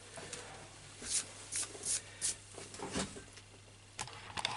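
Soft brushing and rustling of hands working around the inside of an open laptop: about five brief swishes, over a low steady electrical hum.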